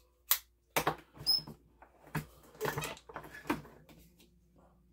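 Clicks, taps and rustles of a plastic 12-gauge shotshell hull being handled and set into a shotshell reloading press. A sharp click comes about a third of a second in, followed by a run of lighter knocks over the next few seconds.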